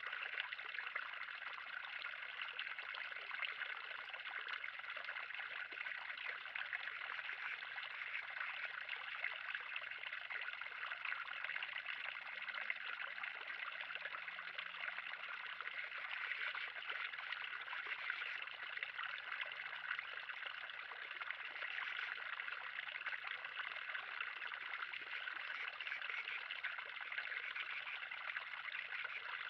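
Steady trickle and gurgle of water running in a 3000-gallon garden pond.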